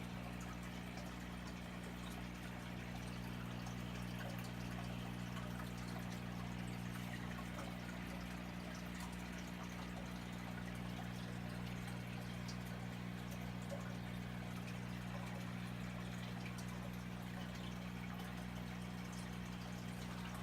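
Aquarium filter water running and trickling steadily into the tank, with small drips and bubbles over a steady low hum.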